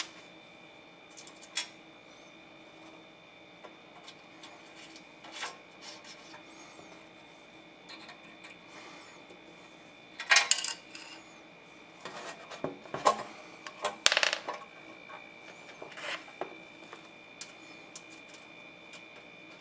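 Small metal parts being handled and worked by hand on a bench: scattered clicks and short scraping, rubbing bursts, the loudest about ten seconds in and again about thirteen to fourteen seconds in, over a faint steady hum.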